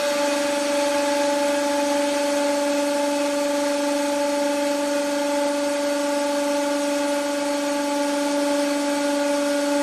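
Hydraulic press pump whining at a steady, unchanging pitch, one continuous hum with even overtones.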